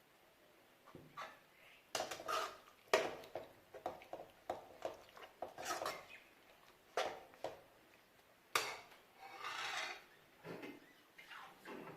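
A cooking utensil scraping and knocking against a pot of chicken gravy in a dozen or so irregular strokes, with one longer scrape near the end.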